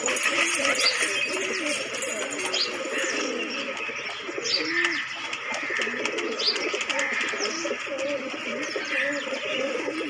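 Several domestic pigeons cooing at once, their low rolling coos repeating and overlapping without pause. A few brief higher chirps sound now and then.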